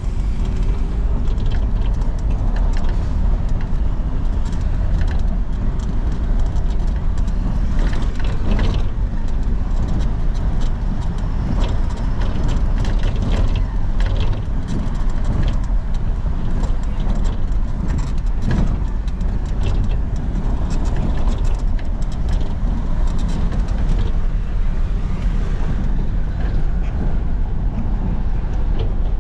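A car driving along a city street, heard from inside the cabin: a steady low rumble of engine and road noise with frequent small rattles and knocks.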